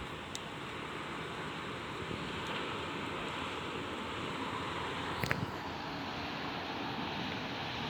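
Steady rushing noise of a thunderstorm's rain and wind, with one brief click about five seconds in.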